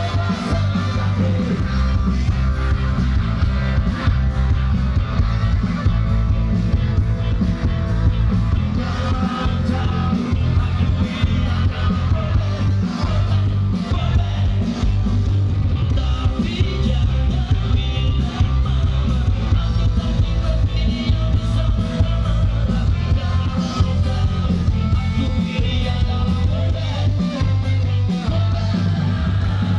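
Live rock band playing loud through a PA system: a singer over electric guitar, heavy bass and drums.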